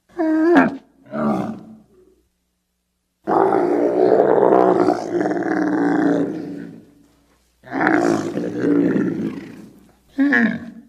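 Camel bellowing in a series of calls: two short ones at the start, a long one of about four seconds, another of about two and a half seconds, and a brief call near the end.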